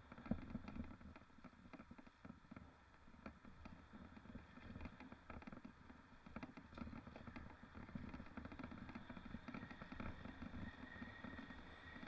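Low steady rumble with many small irregular clicks and rattles: mountain bike riding noise picked up by an action camera mounted on the rider or bike.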